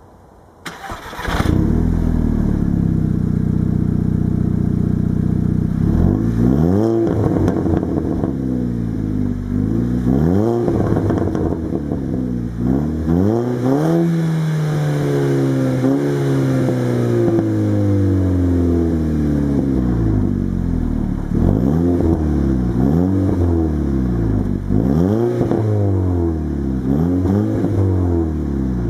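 Tuned Seat Leon Cupra's turbocharged 2.0 TFSI four-cylinder, breathing through a straight-through centre section, a stainless Ragazzon downpipe with 100-cell cat and the stock rear muffler, starting about a second in and idling, then revved again and again: quick blips that rise and drop back, one longer rev that falls away slowly in the middle, and more blips near the end.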